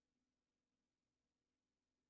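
Near silence: no audible sound, only a faint steady electrical hum far below hearing level.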